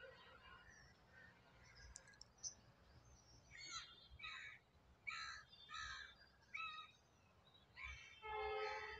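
Animal calls over quiet room tone: a run of about five short calls from about three and a half seconds in, then one longer, louder call near the end.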